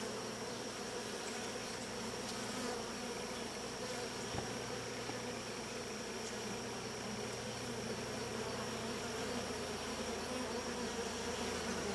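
Steady hum of many honeybees buzzing around the open hive and the comb they are building on.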